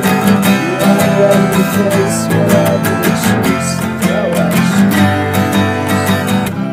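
Acoustic guitar strummed steadily and hard in a song. The strumming stops near the end, leaving the chord ringing.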